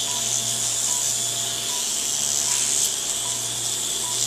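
Liposuction suction hissing steadily as liquefied fat is drawn through the cannula, over a low steady hum. A short electronic beep from the patient monitor repeats about every 0.8 seconds.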